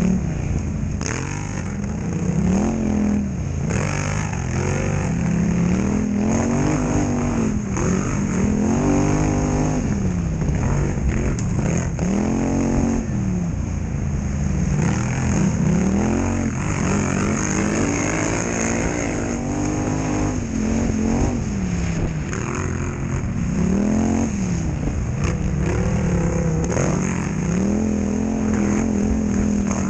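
Polaris Scrambler XP1000 quad's parallel-twin engine racing, revving up and falling back over and over every second or two as the throttle is worked, with frequent knocks and rattles.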